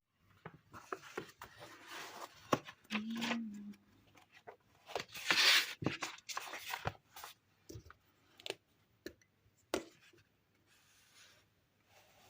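Quiet handling sounds at a desk: scattered light taps and clicks, with a short rustle about five seconds in.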